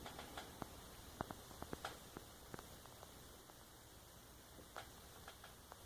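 Near silence with a scattering of faint, short clicks and taps of handling noise, most of them in the first half.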